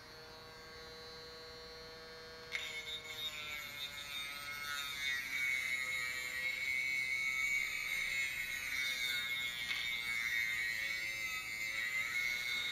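Small 12-volt DC motor spinning an abrasive disc, running with a faint steady whine. About two and a half seconds in, the dulled steel blade of a manual pull-cord chopper is pressed against the disc, and a steady grinding sound with a high whine sets in as the blade is sharpened.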